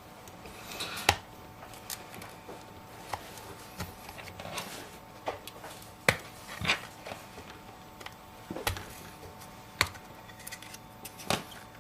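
iSesamo pry tool clicking and scraping against an iPhone's screen edge and aluminium shell as the screen is pried open: scattered sharp clicks a second or more apart, the sharpest about a second in, about six seconds in and near ten seconds.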